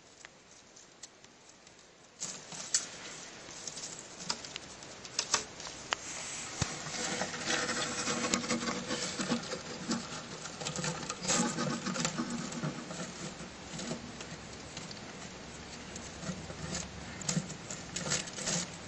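Rustling and scratching on dry soil and leaf litter with many sharp clicks as a white mouse struggles in a praying mantis's grip, starting about two seconds in.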